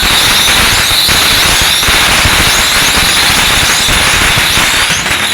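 A string of firecrackers going off in rapid, dense crackling, loud and unbroken, over a steady high-pitched tone.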